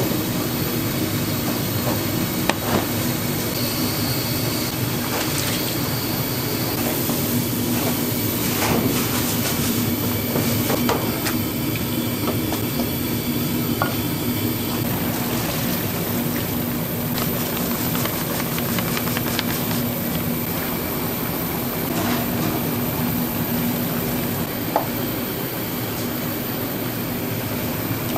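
Steady hum of restaurant kitchen machinery, such as an exhaust hood fan, with a low droning tone and a few scattered light clinks and clicks.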